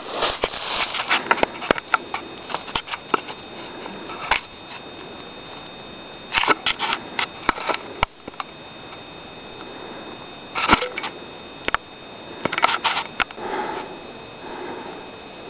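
Footsteps crunching and rustling on dry forest leaf litter, in short irregular clusters with pauses between, over a faint steady high tone.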